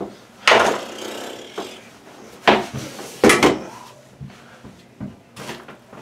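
A few loud, short scrapes and knocks of hands and cable working at a hole cut in drywall, as electrical wire is handled and pulled through the ceiling opening.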